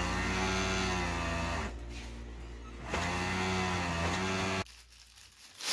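Industrial overlock sewing machine running in two short bursts, its motor whine rising and settling as it stitches the edge of a sheet. It stops abruptly near the end.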